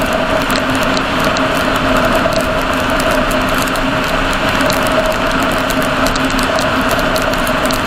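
Car driving at motorway speed on a wet road, heard inside the cabin: steady engine and tyre noise with a steady two-note hum and frequent light, irregular ticks.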